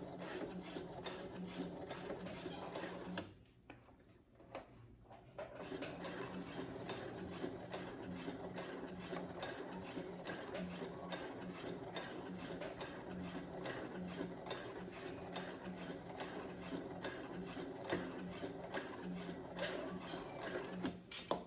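Brother CS7000X computerized sewing machine stitching a seam: steady, fast running of the needle and feed mechanism over a low motor hum. It stops for about two seconds a few seconds in, then resumes and runs on.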